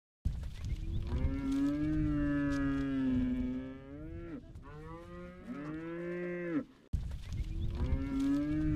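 Cattle mooing: long drawn-out calls one after another, the middle one rising and then falling in pitch.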